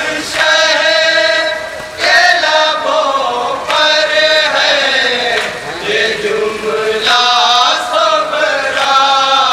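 A group of men chanting a nauha, a Shia lament for Muharram, in long drawn-out sung phrases. Lead voices at the microphones are joined by a chorus, with short breaks between the phrases.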